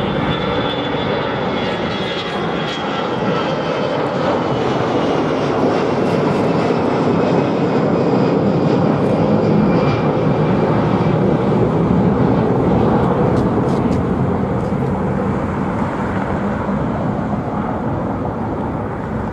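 Airbus A320-family twin-jet airliner climbing out after takeoff: a steady, loud jet roar, with a high whine that slowly falls in pitch over the first several seconds as the jet pulls away.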